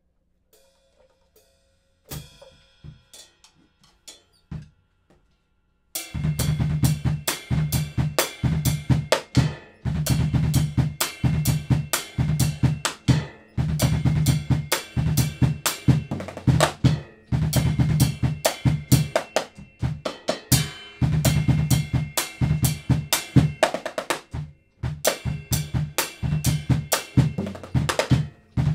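Acoustic drum kit: a few soft cymbal and drum taps, then about six seconds in a full groove on bass drum, snare and cymbals starts and runs on, with a few brief breaks.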